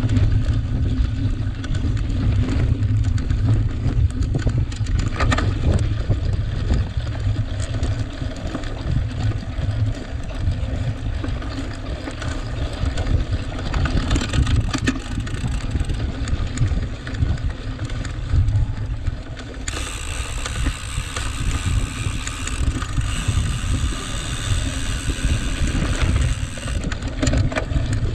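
Wind noise over a bike-mounted or rider-worn camera microphone, with the rattle and tyre noise of a cyclocross bike being raced over rough dirt and grass. About two-thirds of the way through, a brighter hiss of tyre and surface noise sets in for about seven seconds, then eases off.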